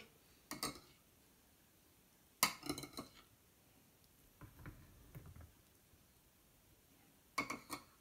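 A metal fork clinking and scraping against a small dish in three short clusters of sharp clicks while filling is scooped out, with softer, duller knocks in between.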